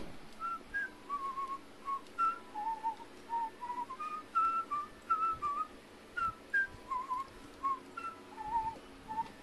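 A whistled tune: a quick run of short notes hopping up and down in pitch, with a brief pause about two-thirds of the way through.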